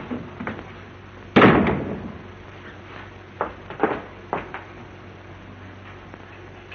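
A door slams shut once, sharply, about a second and a half in, followed by a few lighter knocks a couple of seconds later.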